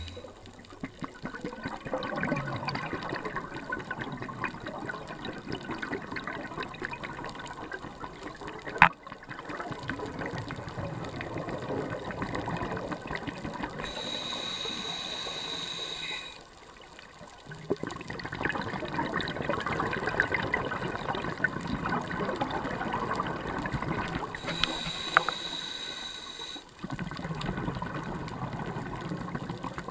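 A scuba diver's breathing through a regulator, heard underwater. Long stretches of bubbling, crackling exhalation are broken twice, about halfway and near the end, by a shorter inhalation with a thin steady hiss. There is one sharp click about nine seconds in.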